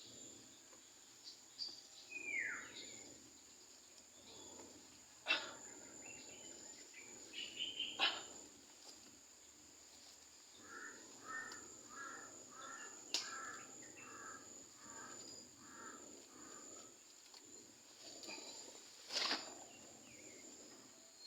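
Faint outdoor rural ambience: a steady high insect drone, with scattered bird calls. One falling call comes about two seconds in, and a run of about ten evenly repeated notes comes midway. A few sharp clicks or knocks are heard, the loudest events.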